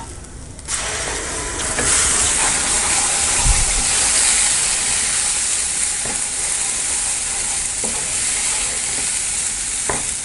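Ground tomato and cashew masala paste frying in hot oil and butter in a kadai: a steady sizzle starts suddenly about a second in as the paste goes into the pan, and runs on while a wooden spatula stirs it. A low thump comes about three and a half seconds in.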